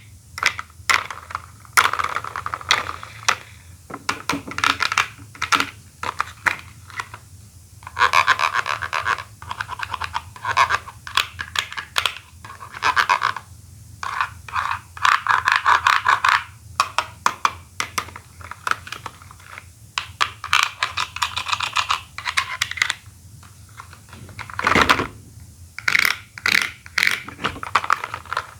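Plastic Pokéball toys being handled, their shells clicking and snapping, in dense runs of rapid clicks and rattles with scattered single knocks between.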